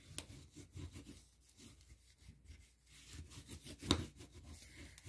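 Bone folder rubbing over cardstock, smoothing down a freshly glued paper panel: faint, irregular scraping strokes, with one short sharp click about four seconds in.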